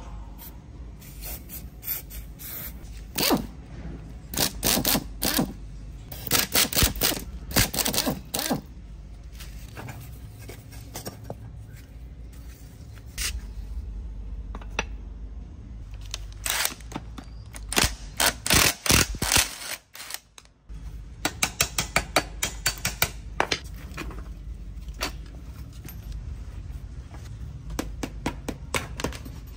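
Scraping by hand in runs of quick, sharp strokes, several a second, with pauses between the runs, over a low steady hum.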